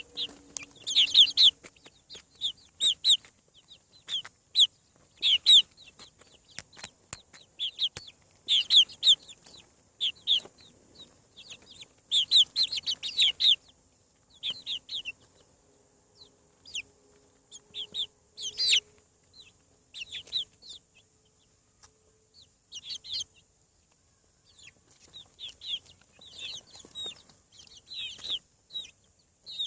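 Chicks peeping: many short, high, downward-sliding peeps in quick clusters, with a quieter lull midway.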